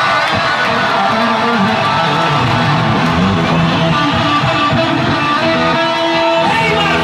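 Loud amplified electric guitar playing rock music live, with held notes ringing over the band.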